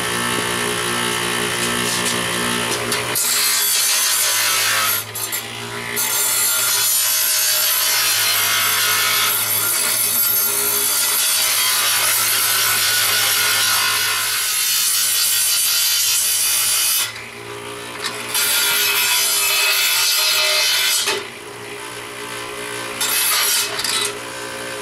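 Bench grinder running with a steady motor hum while a piece of steel is pressed against the spinning wheel. A loud grinding rasp starts about three seconds in and comes in several passes, with short breaks where only the motor hum is left.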